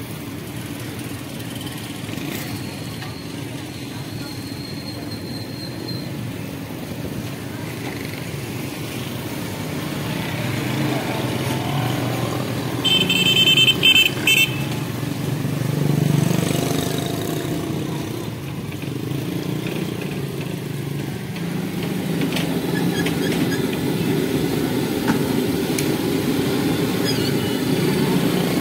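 Steady street-traffic din of motorcycle and vehicle engines, with a vehicle horn sounding for about a second and a half near the middle.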